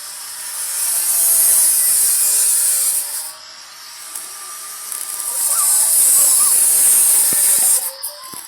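Arc welding: the arc hisses and crackles in two long runs of about three seconds each, with a short break between them.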